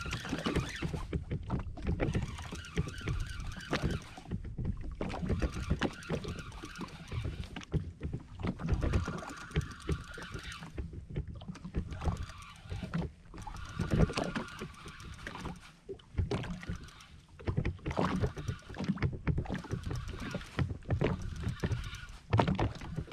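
Wind buffeting the microphone and water slapping a jet ski's hull, with short bouts of a spinning reel being wound in against a hooked fish.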